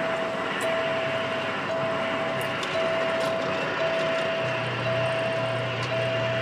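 Steady engine and road noise inside a tractor-trailer cab on the move, with a high electronic beep repeating about once a second. A low hum joins in about halfway through.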